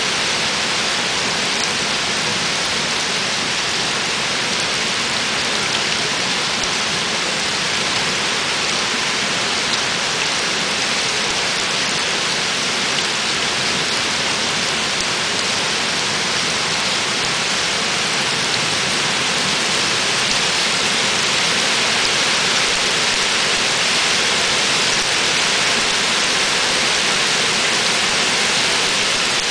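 Torrential cloudburst rain pelting flooded stone paving, a steady loud hiss of spray and splashing that grows a little heavier in the second half.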